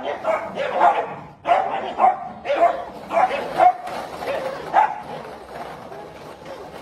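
Small dogs barking repeatedly in short, sharp barks, about one or two a second, growing fainter over the last couple of seconds.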